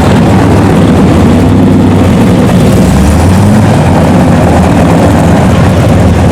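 Car engine running steadily at low speed, a continuous low rumble.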